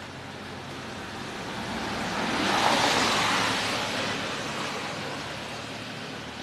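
A vehicle driving past: an even hiss of tyre and road noise that swells to a peak about two and a half seconds in and then slowly fades away.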